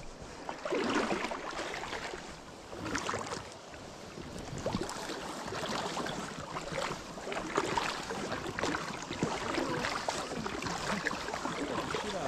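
Legs in waders sloshing through shallow stream water, each wading step a splashy swish.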